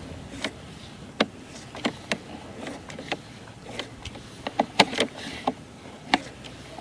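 Irregular sharp clicks and knocks, about a dozen, loudest in a cluster near the fifth second, over a low steady hum, as a sewer inspection camera's push cable is fed along the line.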